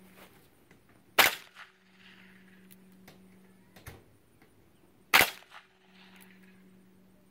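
Two handgun shots about four seconds apart, each with a short echo after it, and a fainter sharp knock between them.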